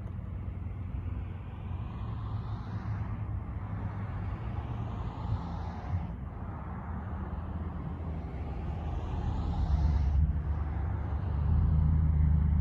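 A steady low motor hum that gets louder near the end, with a rushing noise that rises and then cuts off sharply about every three to four seconds.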